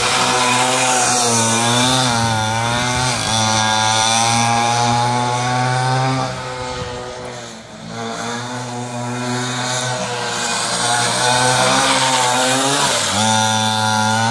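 Small two-stroke pocketbike engine revving hard, its pitch rising and falling as the rider accelerates and brakes through the corners. It fades for a couple of seconds midway as the bike runs farther off, then comes back loud.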